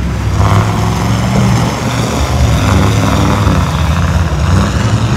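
Pickup truck engine running hard as the truck pushes through a mud pit, with mud and water spraying.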